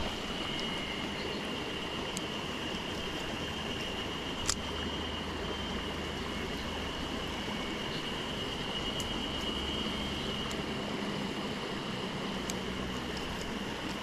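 Small mountain stream running steadily over rocks, with a steady high tone above it and a few sharp clicks, the loudest about four and a half seconds in.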